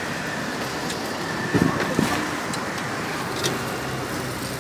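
Steady street traffic noise, with two dull thumps about a second and a half in.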